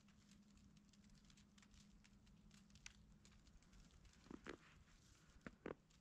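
Faint scattered ticking of falling snow hitting the camera, with four soft crunches near the end from footsteps in fresh snow.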